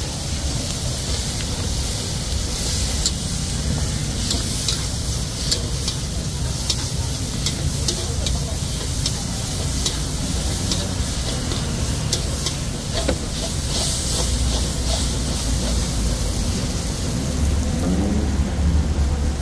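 Rice noodles sizzling in a hot wok while a metal spatula stirs and scrapes against the steel, with many sharp clinks from about three seconds in until about fourteen seconds. A steady low rumble runs underneath, swelling near the end.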